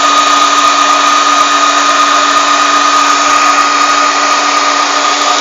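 Klaz stand mixer running steadily, its beater whipping cake batter in a steel bowl; a constant motor whine and hum with no change in speed.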